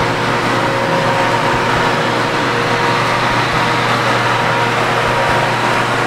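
Industrial flatwork ironer with heated rollers, 12 feet wide, running as a sheet is fed into it: a steady mechanical drone and hiss with a faint high steady hum on top.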